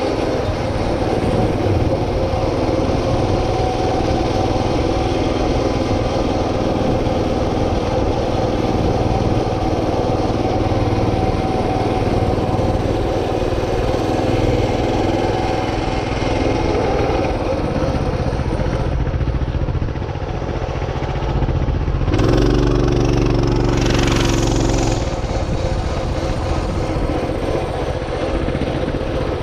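A vehicle engine running steadily as the vehicle moves along. About 22 seconds in, a low steady tone joins it for around three seconds.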